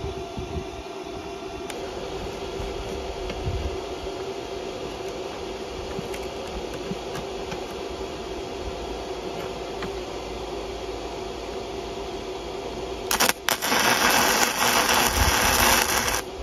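Gasless flux-core MIG welding arc on steel rebar, starting suddenly about 13 seconds in and crackling loudly for about three seconds before stopping. Before it, only a steady background hum.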